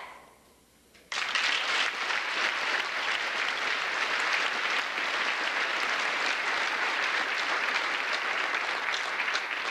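Crowd applauding. The applause starts suddenly about a second in and holds steady.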